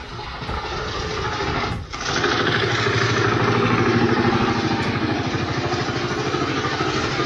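An engine running steadily. It is louder and steadier from about two seconds in, with an even low hum.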